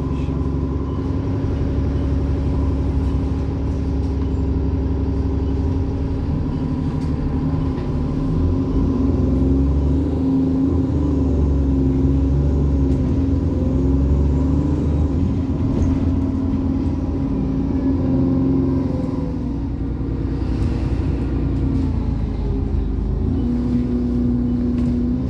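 Alexander Dennis Enviro 400 double-decker bus's diesel engine running under way, its pitch rising and falling several times as it pulls and changes gear. A thin, steady turbo whine sits over the engine thrash for most of the time and fades about two-thirds of the way through.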